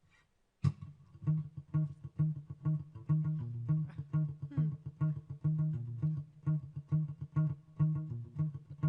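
Live band instrumental intro: plucked guitar and bass playing a steady, rhythmic pattern, starting suddenly about half a second in.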